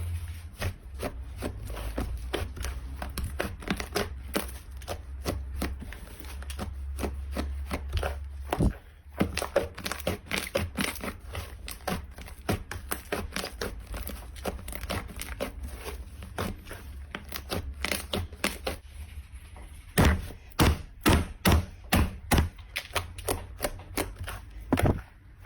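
Slime being squeezed and pressed by hand, giving dense crackling clicks and pops. From about 20 seconds in, a run of louder separate pops comes at about two a second.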